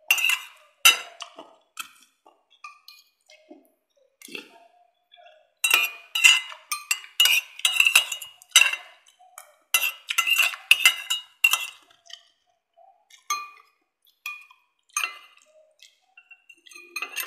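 Metal spoon and fork clinking against a plate and soup bowl, in quick irregular runs of clinks, densest in the middle.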